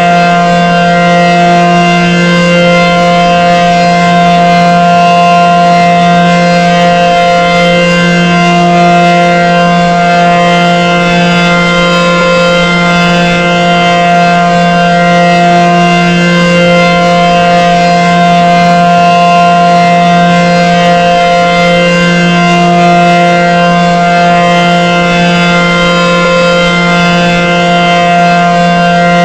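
ACA Banshee 115 outdoor warning siren sounding a loud, steady tone without rise or fall, the alert signal, swelling and dipping slightly every few seconds.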